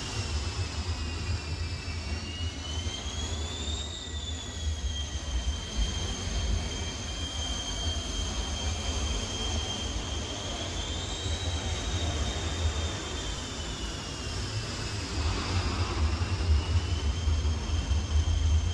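Jet fighter's turbine engine running with a high whine over a deep rumble. The whine rises and falls in pitch: it climbs to a peak about four seconds in, rises again near eleven seconds and dips a few seconds before the end.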